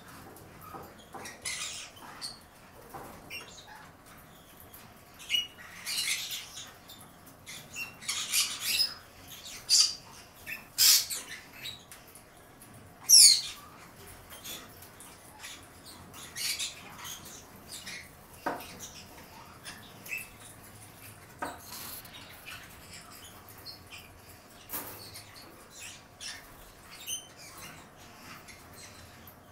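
A pair of green-cheeked conures, one a red-factor pineapple, giving scattered short, high squeaks and chirps with soft rustles. The loudest is a quick falling squeak about halfway through.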